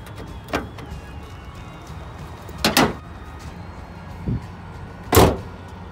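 A Nissan Leaf's hood being lowered and slammed shut: a few scattered knocks and clunks, with the loudest and heaviest slam near the end.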